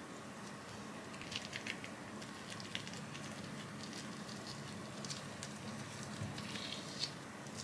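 Plastic cling wrap crinkling in short, scattered crackles as fingers twist and press it tightly around a small soft ball of food.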